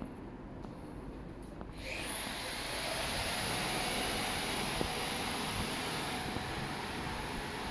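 A machine starting up about two seconds in: a high whine rises quickly and settles into a steady, loud rushing whir, like a motor-driven fan or blower running at speed.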